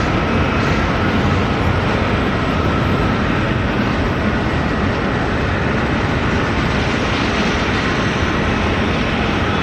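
Boeing 787-9 airliner's turbofan engines at takeoff power: a steady, loud rushing jet noise with a faint whine on top.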